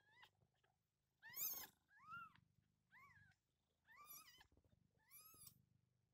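Newborn kittens mewing: about six short, high-pitched calls, each rising then falling in pitch, the loudest about a second and a half in. The mother cat purrs faintly underneath.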